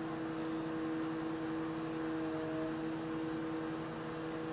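Steady background hum with a few constant tones over a low hiss, like a fan or electrical hum, unchanging throughout.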